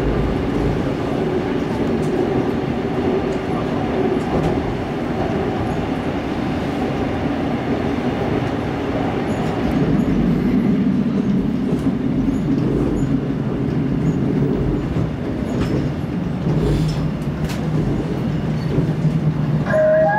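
Seoul Metro 2000-series train with GEC chopper control running through a tunnel, a steady rumble of wheels on rail heard from inside the car, with the lower part of the rumble shifting about halfway through. An onboard chime melody starts just at the end.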